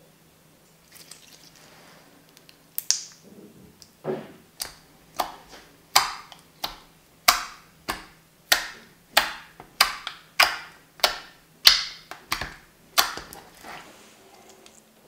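Clear dish-soap slime pressed and folded by fingers, making a steady run of sharp, wet pops as trapped air bursts out, about three every two seconds. The pops start about four seconds in and stop near the end.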